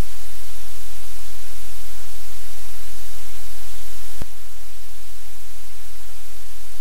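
Loud, steady hiss like white noise or static, with a low hum underneath. A single click comes about four seconds in, and after it the hiss is slightly quieter.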